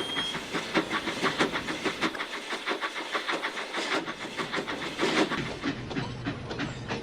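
Steam locomotive sound effect: the engine puffing in a quick, even rhythm over a steady hiss, with one louder puff about five seconds in.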